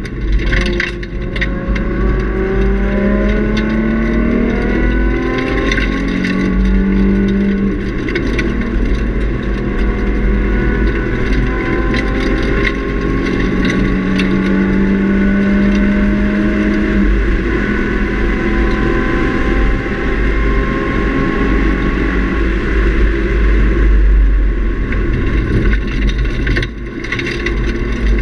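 Nissan 350Z's 3.5-litre V6 with a Nismo cat-back exhaust and high-flow catalytic converters, heard from inside the cabin under hard track driving: the engine note rises in several long pulls and drops back between them, over steady road and wind rumble.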